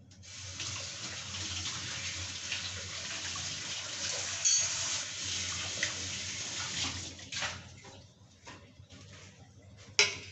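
Water running steadily for about seven seconds, then stopping, followed by a few light clicks and one sharp knock near the end.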